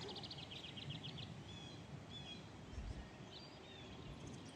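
Small songbirds calling: a quick run of high twittering notes in the first second, then scattered short high chirps, over faint outdoor background hiss.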